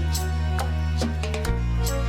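Calm instrumental background music: held low bass notes under a series of short higher notes, the bass note changing about one and a half seconds in.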